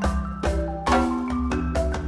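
Background music: a bright, quick melody of short notes over a steady bass line and beat.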